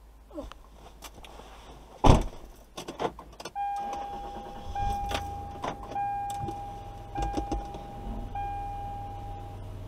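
Car interior sounds: a loud knock about two seconds in and a few clicks, then a steady electronic warning tone, broken by short gaps every second or so, that lasts about six seconds over a low engine rumble.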